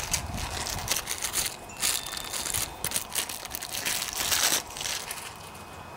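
Thin plastic parts bag crinkling and rustling in quick irregular crackles as it is handled and opened. The crackling dies away about five seconds in.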